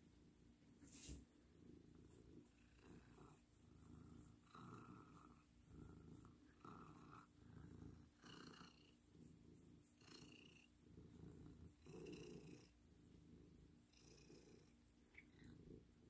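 Domestic cat purring softly while being scratched on the face and chin, the purr swelling and easing about once a second. A single sharp click about a second in.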